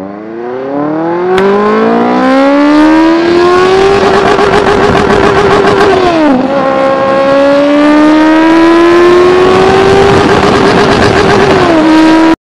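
Benelli TNT 600i's 600 cc inline-four engine, through a Toce aftermarket exhaust, accelerating hard in first gear. The pitch climbs for about four seconds and holds at the top of first, then drops sharply at the shift into second about six seconds in. It climbs again, levels off, and drops once more just before the sound cuts off.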